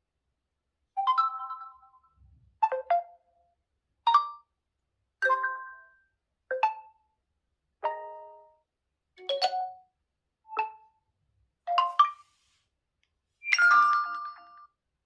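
A realme GT2 Pro ringtone playing through the phone's speaker: a string of short, bright chime notes at changing pitches, about one every second and a quarter, each dying away before the next. The last note near the end is longer and fuller.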